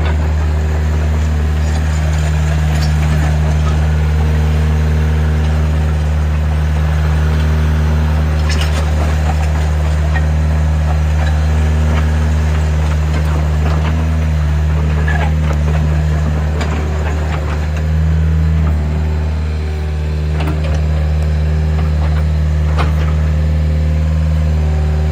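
Doosan DX60-9C mini excavator's diesel engine running steadily, with scattered light clicks and knocks over it. The engine note rises briefly about three-quarters of the way through, then settles.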